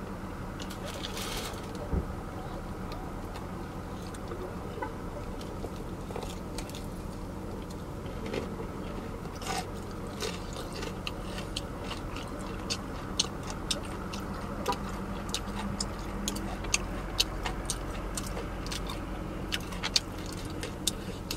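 Close-up chewing and crunching of crispy fried chicken, with short crisp crackles that come more and more often in the second half. A steady low hum runs underneath.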